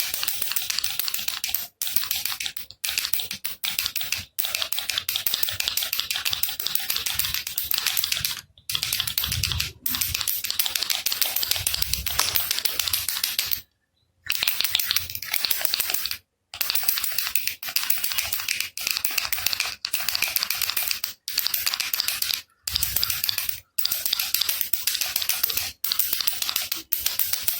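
Baby rattle shaken fast, a dense high rattle of loose pellets inside, in runs of one to four seconds with short breaks between.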